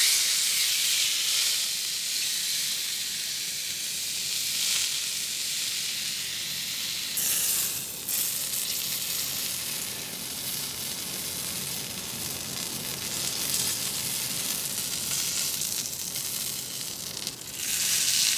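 Bison tomahawk steak sizzling steadily in oil on a griddle plate heated to about 560 degrees, a hard high-heat sear. The sizzle swells louder about seven seconds in, and again near the end as the steak is turned with tongs.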